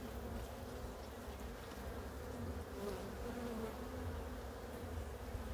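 A honey bee colony buzzing steadily in an opened hive, a low even hum with a slight waver.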